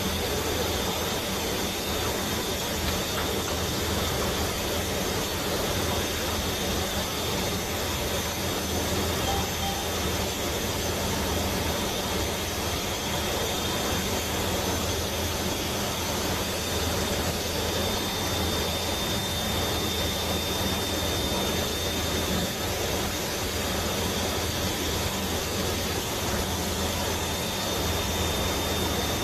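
Steady drone of a C-130 transport's turboprop engines heard inside the flight deck on approach to landing, with a low hum and a thin constant high whine over it.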